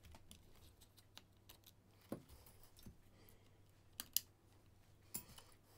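Faint, scattered clicks and taps of small screws and plastic parts being handled while a robot pet's leg casing is taken apart, a few sharper clicks standing out around two, four and five seconds in.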